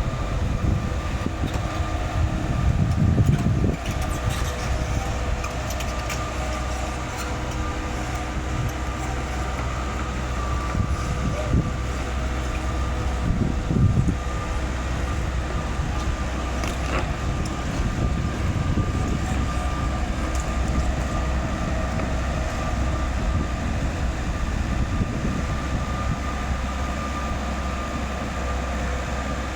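Excavator's diesel engine running steadily with a constant whine over it, and a few sharp metal clanks as it lifts iron.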